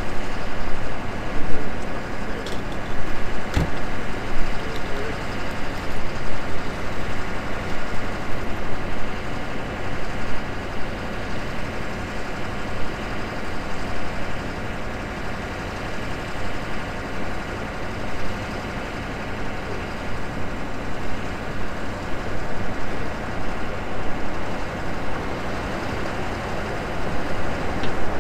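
Steady street noise dominated by a motor vehicle's engine idling, with one sharp click about three and a half seconds in.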